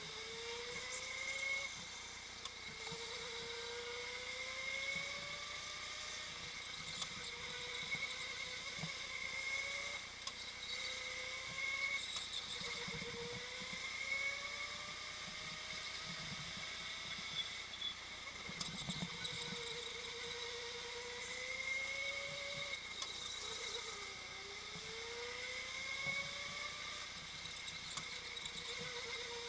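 Go-kart motor whining as it drives hard round a track, the pitch rising with each acceleration and dropping back into the corners, about every two seconds.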